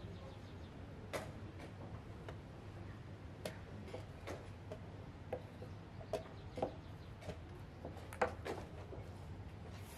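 Wooden chess pieces tapped down on the board and chess-clock buttons pressed: irregular short, sharp clicks a second or so apart, the loudest about eight seconds in, over a steady low hum.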